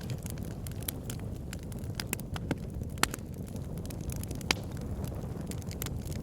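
Wood logs burning in a fireplace: a steady low rumble of flame with irregular sharp crackles and pops, two of them louder, about three seconds in and again about a second and a half later.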